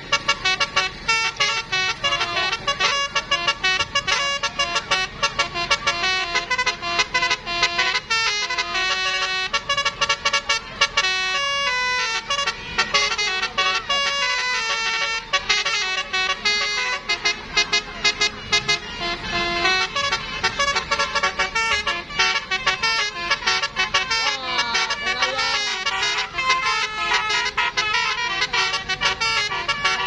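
Bus telolet horn, a multi-tone musical horn, playing a rapid tune of short notes that step up and down in pitch.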